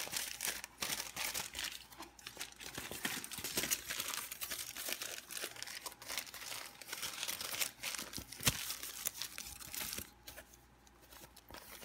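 Aluminium foil crinkling as it is folded and handled, with one sharp tap about eight and a half seconds in. The crinkling dies down over the last two seconds.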